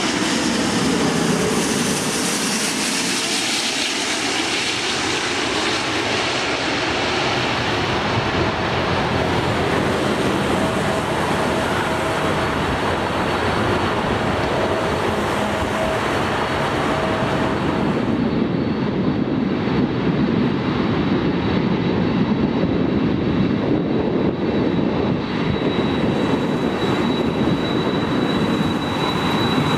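Jet engines of a British Airways Airbus A380, a steady loud roar as the aircraft comes in low on final approach and then touches down on the runway. From about 18 s in, the sound turns duller and lower: the jet engines of a Boeing 747 taxiing.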